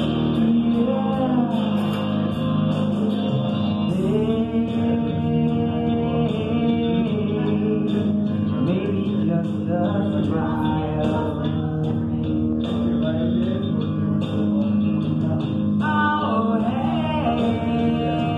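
A woman singing into a microphone over a guitar backing track, amplified through a PA. Her long held notes slide up and down in pitch.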